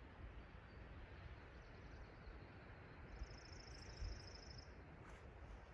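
Near-silent outdoor background with a bird's high, rapid trill starting about three seconds in and lasting about a second and a half.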